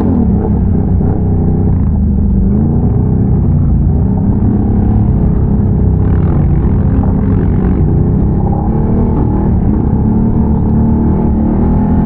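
ATV engine running loud and continuous while riding, its pitch rising and falling a little with the throttle.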